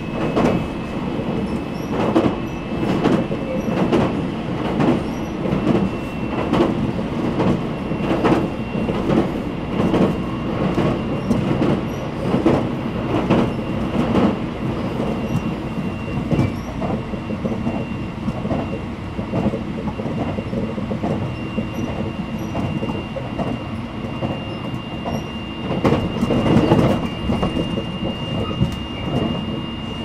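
Running noise inside a JR 683-series electric limited-express train at speed: a steady rumble with irregular clacks of the wheels over rail joints, thickest in the first half and again a little before the end, and a steady high whine that edges up in pitch.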